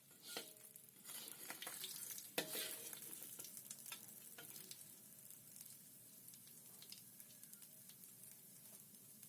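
Food sizzling in a frying pan, with a few knocks of a utensil against the pan; the sharpest knock comes about two and a half seconds in.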